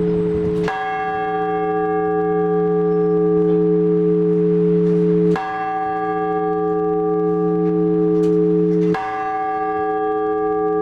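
Orthodox church bells ringing. A deep humming tone sustains throughout while a bell is struck three times, about four seconds apart, each stroke ringing out bright and slowly dying away.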